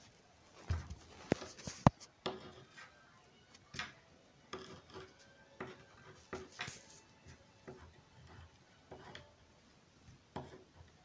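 Pen writing numbers on paper on a wooden table: short scratching strokes with brief pauses between them. A few sharp knocks in the first two seconds, the loudest just before the writing starts.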